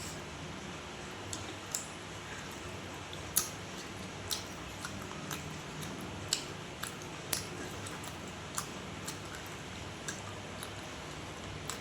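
A person chewing food close to the microphone: wet mouth clicks and smacks at irregular intervals, about one a second, over a steady low hum.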